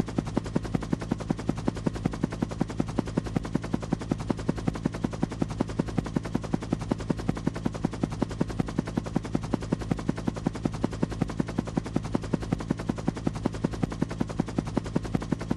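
Helicopter rotor running steadily: a rapid, even train of blade thumps over a steady low drone.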